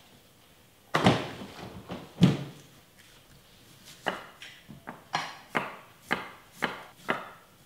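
Chef's knife chopping an onion on a wooden cutting board. There are two heavy knocks in the first few seconds, then a steady run of knife strikes on the board at about two a second.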